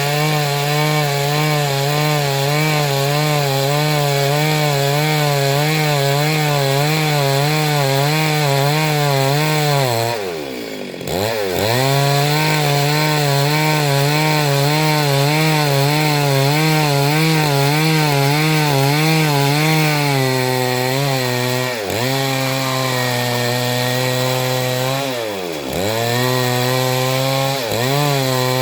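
Two-stroke chainsaw running at high speed and cutting through Gamhar wood, its pitch wavering under the load of the cut. The engine eases off and revs back up about ten seconds in and twice more near the end.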